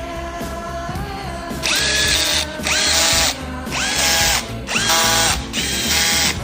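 Electric power drill/driver run in five short bursts, each spinning up in pitch and then holding steady for under a second, the first starting nearly two seconds in, over background music.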